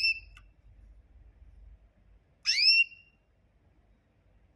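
A small bird giving a short whistled call that sweeps quickly up and then holds a high note, twice, about two and a half seconds apart.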